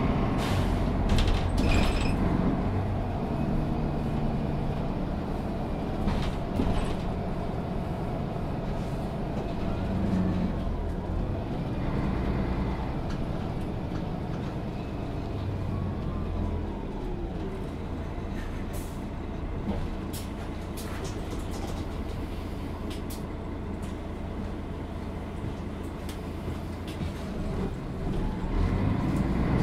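Setra S 415 NF low-floor city bus heard from inside, its diesel engine running at low revs. The sound quietens gradually, then grows louder again near the end.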